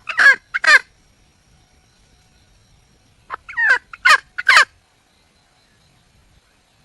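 Red junglefowl hen calling to attract a male: two bursts of short, falling notes, three right at the start and four more about three seconds in.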